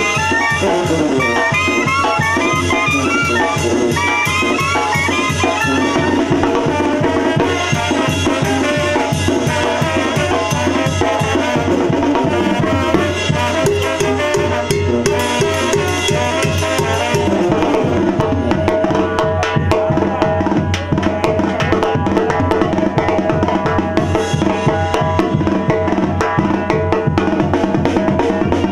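Live Mexican banda playing: clarinets, trumpets, trombones and tuba over a driving beat from the tarola snare drum, cymbal and tambora bass drum. Quick rising melodic runs repeat over the first six seconds, then the band settles into a steady drum-driven groove.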